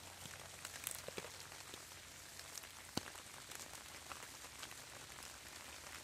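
Rain falling on wet leaf litter: a faint, steady hiss with scattered drop ticks and one sharper click about three seconds in.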